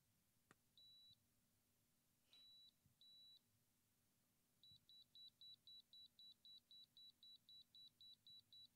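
High-pitched electronic beeper of an iGaze RE receiver beeping while its learn button is held down to clear its memory. Three separate beeps in the first few seconds, then, from a little before halfway, a fast run of short beeps, about five a second.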